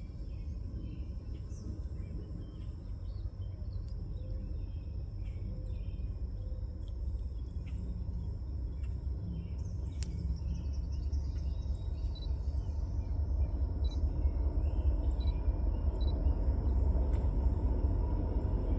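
Insects drone steadily and birds chirp now and then over a low rumble. The rumble grows steadily louder through the second half as the passenger train's diesel locomotives approach.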